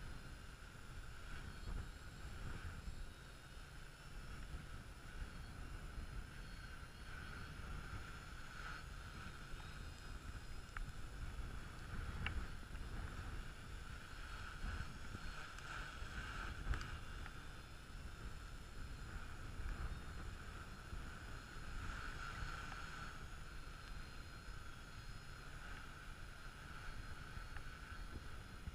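A drone's electric motors and propellers humming at a steady pitch that swells and fades every few seconds, over a low rumble of wind on the microphone.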